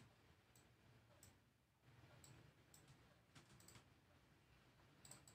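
Faint computer mouse clicks, scattered irregularly over quiet room tone.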